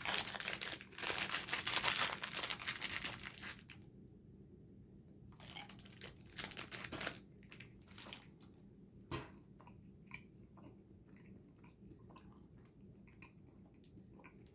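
A candy packet crinkling and being torn open for the first few seconds, then quiet chewing with soft scattered clicks as Pulparindots, soft tamarind candies, are eaten.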